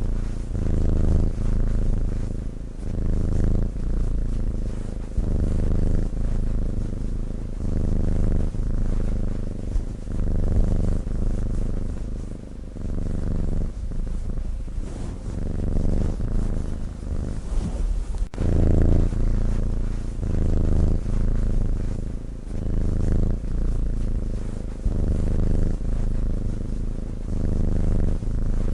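Sleeping domestic cat's low, rhythmic purring snore, pulsing in and out with each breath about once a second.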